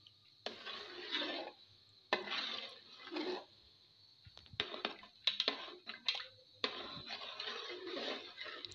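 Metal spatula stirring and scraping boiled khesari dal (grass-pea lentils) in an aluminium pot: wet sloshing and scraping in several strokes with short pauses between them, and a few sharp clicks of metal on the pot around the middle.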